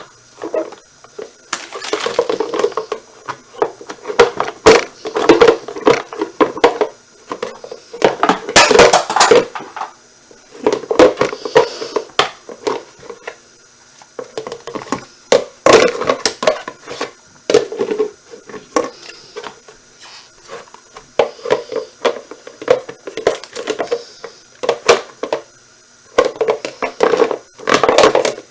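Hard plastic parts of a pet water fountain clattering, knocking and clicking as they are handled and pressed together, in irregular bursts with short pauses between them.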